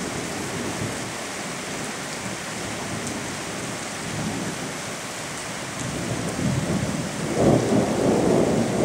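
Steady heavy rain, with a low rumble of thunder building from about six seconds in and loudest near the end.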